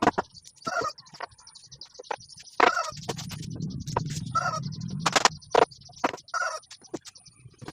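Short bird calls repeat about every two seconds, among several sharp knocks. A low rumble runs for about two seconds in the middle.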